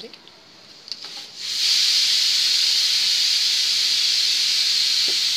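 Pressure cooker whistling: steam hisses out of the valve, starting suddenly about a second and a half in and staying loud and steady. It is the sign that the cooker has come up to pressure with the saag boiling inside.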